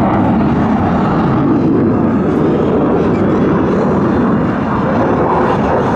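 Steady jet engine noise from F-16 Fighting Falcon fighter jets in flight, a dense rumble with no break.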